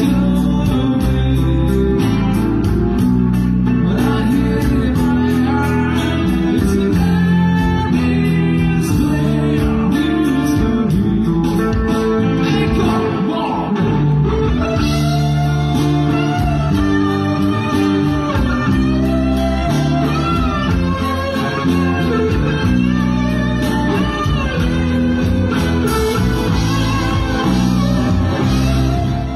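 A song with a singing voice over guitar, playing steadily.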